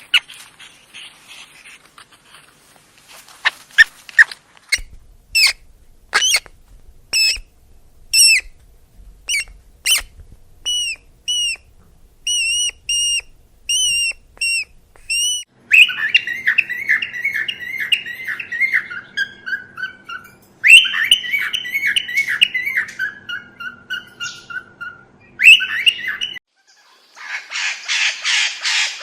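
Bird calls: a series of sharp, high, repeated notes about one or two a second, then three runs of notes falling in pitch, the first about four seconds long.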